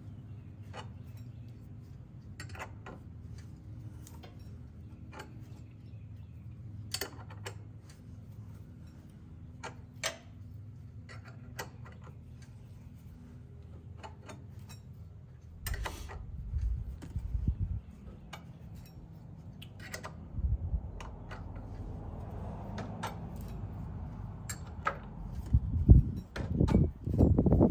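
Hand tools clicking and clinking on metal at an irregular pace while the crank pulley is worked off the engine's crankshaft. There are heavier clunks about halfway through and again, loudest, near the end.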